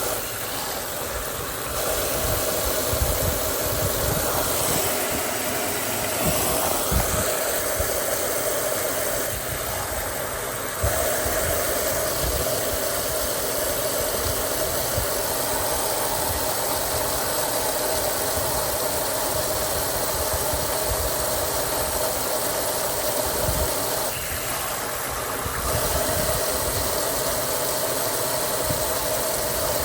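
Mueller Popmatic 8 kg washing machine running mid-cycle: a steady motor hum with low knocks and rattles, dropping out briefly three times.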